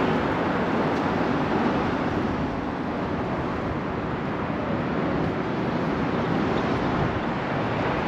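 Steady noise of road traffic on a busy multi-lane street, mixed with wind rushing over the microphone.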